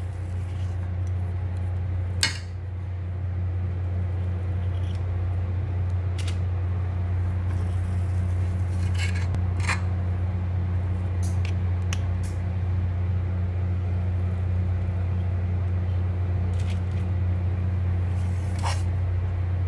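Metal ice cream scoop scraping and clicking against a stainless steel mixing bowl while scooping stiff cookie dough, a few sharp clicks scattered through, the loudest about two seconds in. A steady low hum runs underneath.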